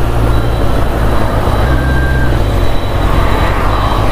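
Kawasaki Z800's inline-four engine running at low road speed while pushing a second motorcycle along, its low note shifting slightly, with steady wind and road noise.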